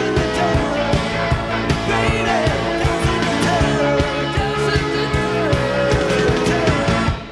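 Live rock band music from an old cassette recording, with drums, guitar and a wavering melodic lead, its sound slightly degraded by the two-head cassette deck it was taped on. The music drops away abruptly near the end.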